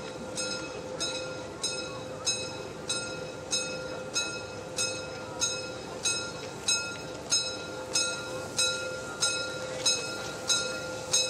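A short, ringing metallic strike repeating evenly about one and a half times a second over a steady hum, in a railway yard setting.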